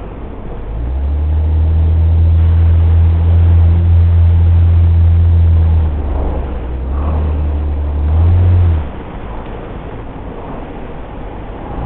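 Nissan Elgrand being driven, heard from inside the cabin: road noise with a steady low engine drone that comes in about a second in, dips near six seconds and fades out near nine seconds.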